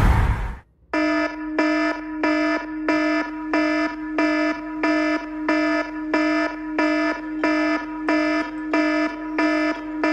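Smartphone alarm beeping in a steady repeating pattern, about three beeps every two seconds, starting about a second in.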